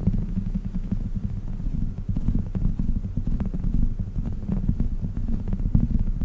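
A dog's chicken toy being handled and rubbed close to the microphone: dense, muffled low thumping with many small clicks and taps running through it.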